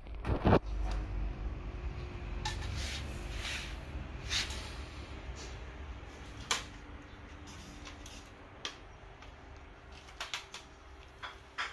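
Plastic toy gun being handled and its parts fitted together: scattered clicks and knocks of hard plastic, the loudest a thump about half a second in.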